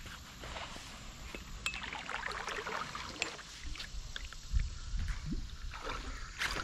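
Light splashing and small knocks of water and gear around a plastic sit-on-top kayak, irregular rather than rhythmic. There is a low thump about four and a half seconds in and a sharp click near the end.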